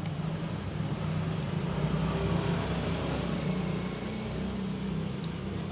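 An engine running steadily in the background, a low rumble that grows a little louder about two seconds in and then eases off.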